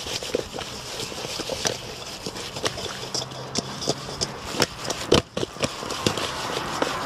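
Seasoned barracuda pieces being tossed in a stainless steel bowl to coat them, with irregular soft knocks and slaps against the metal and one louder knock about five seconds in.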